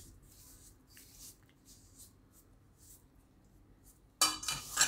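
Soft, faint squishing and rubbing of a stiff ghee-and-flour dough being pressed together by hand in a steel bowl. Near the end, a sudden loud metallic ring as the steel bowl is struck.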